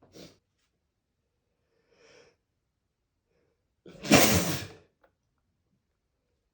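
A man's loud, unstifled sneeze about four seconds in, lasting about a second, after a short, quiet in-breath near two seconds.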